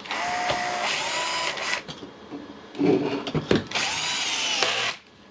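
Cordless Milwaukee impact wrench running with no load, trigger pulled twice: the motor whine rises as it spins up and holds steady, first for under two seconds, then again briefly about four seconds in. Knocks and handling clatter between the two runs.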